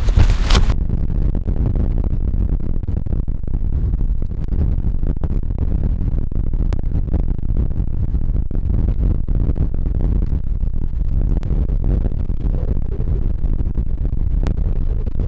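Strong wind buffeting the microphone: a steady, loud low rumble, with a brief louder rushing noise in the first second.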